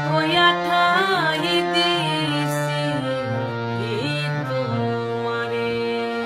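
A woman singing a Bengali song to her own harmonium: the harmonium's reeds hold steady chords throughout while her voice sings an ornamented, wavering line over them, pausing briefly in the middle.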